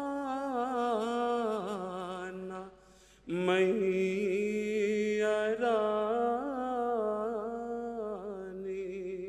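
A man's unaccompanied voice chanting an Urdu nazm (devotional poem), drawing out the closing refrain in long, ornamented held notes. He breaks off briefly about three seconds in to take a breath, then sustains again.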